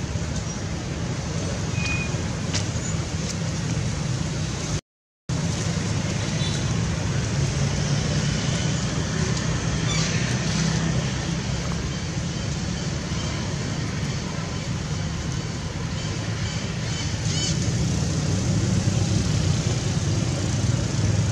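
Steady low outdoor rumble, with a sudden half-second gap about five seconds in and a few faint high chirps later on.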